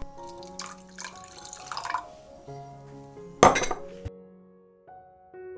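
Liquid poured from a bottle into a glass mug, rising in pitch as it fills for about a second and a half, then a short, loud clatter of glass and a metal spoon at about three and a half seconds. Background piano music plays throughout.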